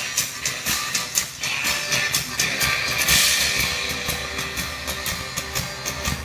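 Rock band playing live: electric bass, guitar and drum kit with a steady beat.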